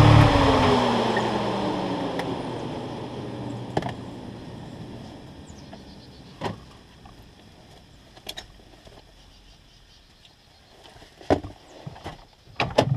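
Yamaha YXZ1000's three-cylinder engine switched off: its running note stops, and a falling whine fades away over several seconds. Then a few scattered clicks and knocks from the cab as the driver gets out, several close together near the end.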